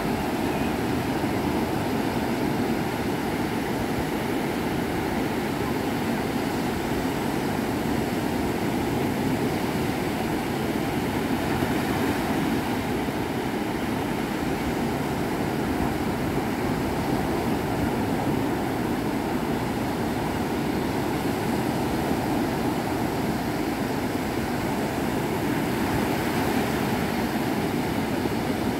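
Small surf breaking and washing up a sandy beach: a steady, even roar of waves.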